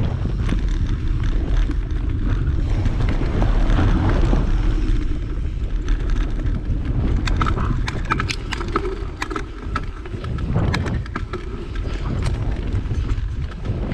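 Mountain bike being ridden over a dirt trail: steady wind buffeting on the microphone and tyre noise, with a run of sharp clicks and rattles from the bike over rough ground about halfway through.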